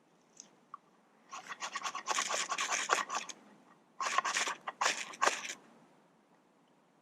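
Ferro rod being scraped hard and fast with a striker to throw sparks onto tinder, in two quick runs of many harsh strokes.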